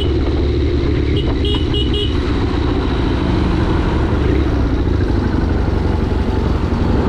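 Triumph motorcycle engine running at highway speed under heavy wind rush on the microphone. About a second in, a horn gives four quick, short, high beeps.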